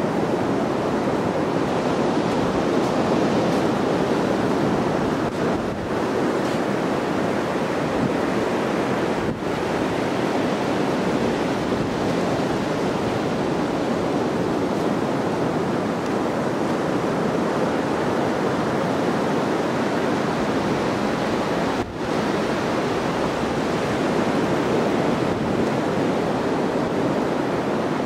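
Steady rushing of surf breaking on a beach, with wind on the microphone.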